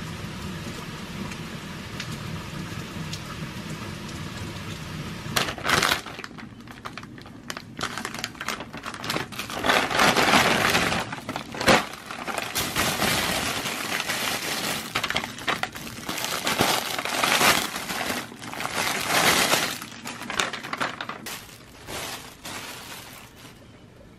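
Steady rain for the first five seconds or so. Then plastic wrapping and plastic bags crinkle and rustle in irregular bursts as packaged items are unwrapped and handled.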